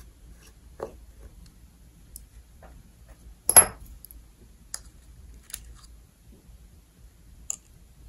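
Scattered light clicks and taps of hands and a small metal precision screwdriver on a plastic monitor casing, the loudest a brief clatter about three and a half seconds in.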